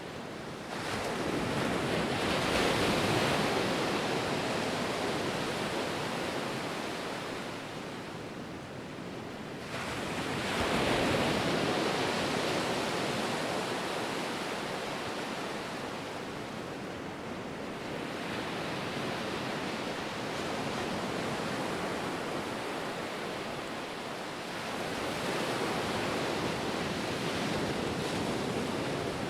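Ocean surf: waves break and wash ashore in three swells about ten seconds apart, each rising suddenly and slowly fading.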